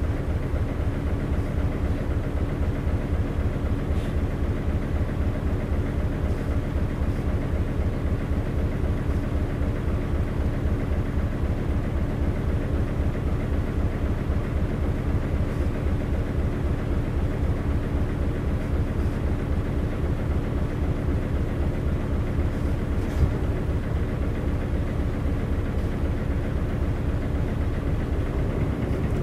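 Isuzu LV city bus's 8PE1-N V8 diesel engine idling steadily with an even low throb, heard from inside the cabin.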